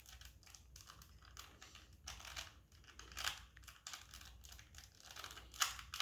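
Faint irregular plastic clicking and rattling of a Rubik's cube's layers being twisted quickly, with a few louder clacks.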